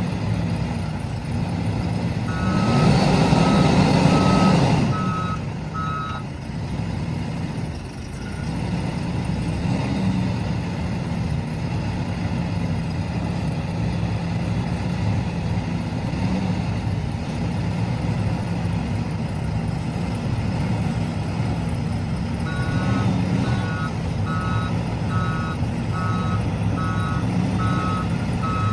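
A heavy earthmoving machine's diesel engine running steadily, rising in a louder burst a few seconds in. A reversing alarm beeps in short repeated pips twice: briefly early on, then steadily for the last several seconds, at nearly two beeps a second.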